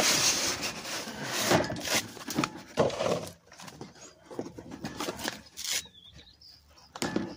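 Handling noise from a boxed tool kit and its carry case: scraping and rubbing with a few knocks and clicks, loudest at the start and quieter after about three and a half seconds.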